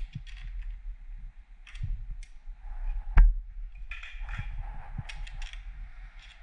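Small clicks and rattles of hand tools and motorcycle lever parts being handled, with one sharp click about three seconds in.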